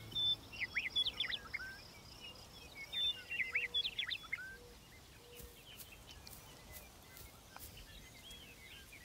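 Wild birds calling: two bursts of quick, sharp chirps that sweep down in pitch, at the start and again about three seconds in, followed by fainter scattered calls over a low outdoor hiss.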